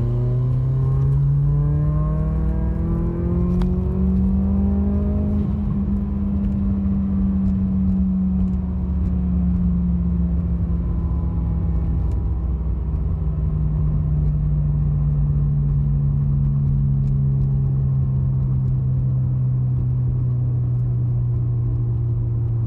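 Turbocharged car engine on a full-throttle pull in third gear, its revs climbing for about the first five seconds, then easing off and holding steady with a slowly falling pitch. It pulls without bogging, and the driver says it spools better now that the loose sump restrictor and PCV hose are fixed.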